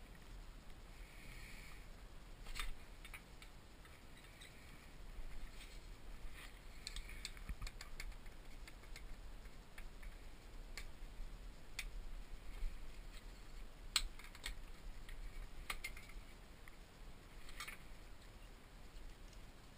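Light clicks and taps of small wooden automaton parts (plywood pieces and dowels) knocking together as they are handled and fitted, scattered irregularly, with a sharper knock about fourteen seconds in. A faint low hum sits underneath.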